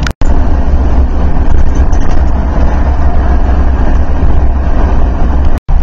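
Steady road and engine noise inside a motorhome's cabin at highway speed, a loud low rumble under a wash of tyre and wind noise. The sound drops out briefly just after the start and again near the end.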